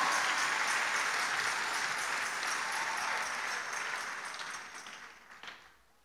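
Congregation applauding, the clapping fading steadily and dying away about five seconds in.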